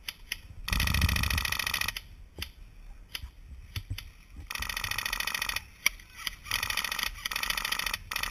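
Airsoft electric guns firing fully automatic, in four bursts of rapid mechanical rattling, the longest about a second. Sharp single clicks sound in the gaps between the bursts.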